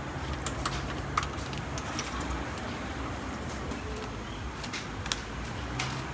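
Metal kebab skewers clinking in short sharp clicks as skewers of raw minced kebab are lifted and handled, over a steady low hum.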